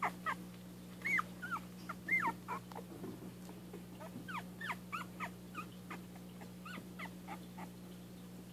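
Young dachshund puppies squeaking and whimpering: a string of short high squeaks that rise and fall in pitch, fainter in the last few seconds, over a steady low hum.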